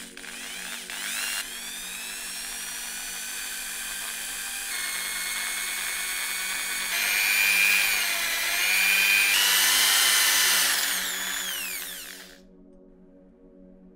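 Electric drill with a twist bit boring into a wooden handle: the motor whine rises as it spins up, grows louder with a wavering pitch as the bit cuts through the wood, then falls in pitch and stops about twelve seconds in. Quiet background music runs underneath.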